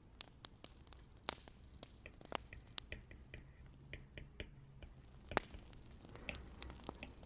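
Wood fire crackling, with irregular sharp pops and snaps over a low steady rumble; one louder pop about five seconds in.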